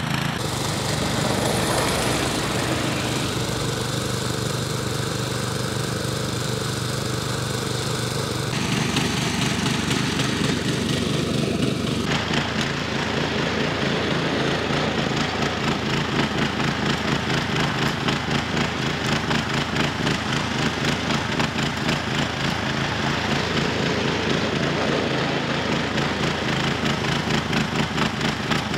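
Petrol snowblower engine running steadily while the machine throws snow, with a fast even engine pulse. The sound changes abruptly about eight and twelve seconds in.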